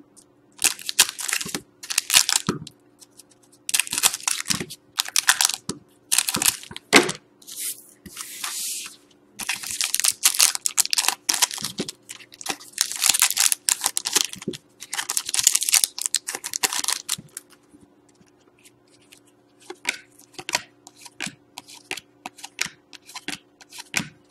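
Foil trading-card packs being cut open with scissors and torn apart, the wrappers crinkling, in a run of short rasping bursts. After that come a few seconds of small clicks and slides as the cards are handled.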